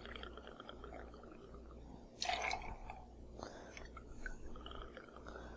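Light rum trickling from the bottle into a metal jigger, a faint gurgling pour, with a brief louder rustle about two seconds in.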